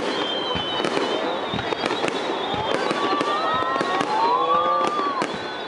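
Aerial fireworks bursting in quick succession, a dense run of sharp bangs and crackles.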